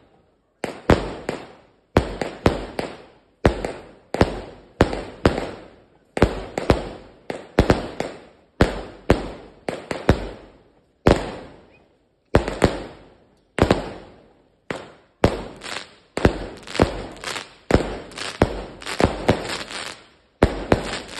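138-shot firework cake firing: a continuous run of sharp bangs from shots launching and shells bursting, roughly one to two a second, each trailing off in a short echo.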